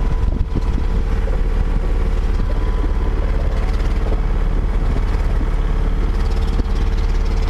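A boat's motor running steadily at an even pitch, with a low rumble underneath.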